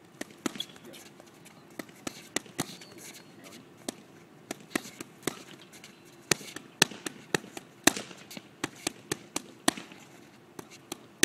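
Boxing gloves punching focus mitts: a string of sharp smacks, irregular, often in quick twos and threes, loudest a little past the middle.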